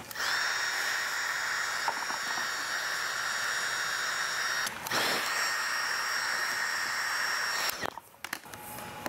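Handheld heat gun running, its fan blowing with a steady whine, heating black vinyl chrome-delete film so it molds onto the grille trim. It drops out briefly about five seconds in, comes back, and switches off near the end.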